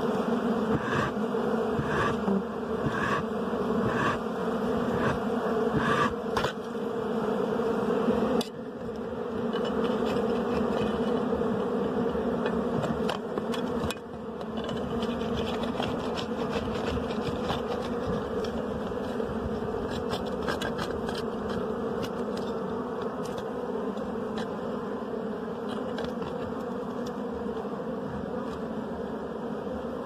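A swarm of wild honeybees buzzing around their exposed wax combs, a steady low hum. There are light knocks about once a second over the first several seconds.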